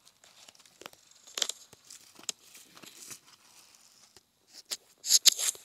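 Scattered rustling and crinkling noises with small clicks, loudest in a short burst about five seconds in.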